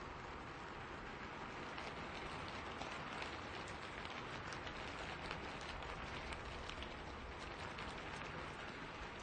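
Steady rain falling in a forest, a continuous hiss with many distinct close drop hits, which come thickest from about two seconds in and thin out near the end.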